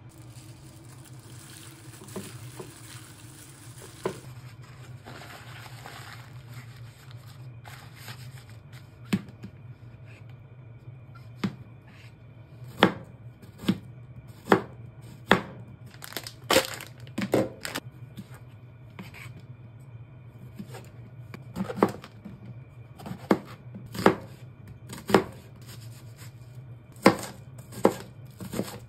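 Kitchen knife slicing mushrooms and then cutting an onion on a cutting board: sharp knocks of the blade hitting the board, irregular and about one a second, over a steady low hum.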